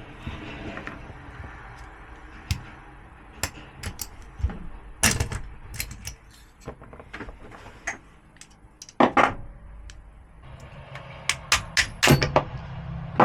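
Sharp clicks and metallic knocks of tools and small parts as an ignition lock is taken apart by hand, with a quick cluster of clicks near the end. A steady low hum sits underneath and gets louder from about ten seconds in.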